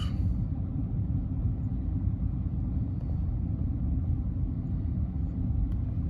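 Steady low rumble without distinct events or changes.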